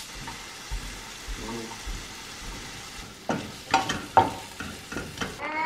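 Chopped sausage sizzling in a nonstick frying pan in its own fat, stirred with a wooden spatula, with a few sharper scrapes of the spatula against the pan about three to four seconds in.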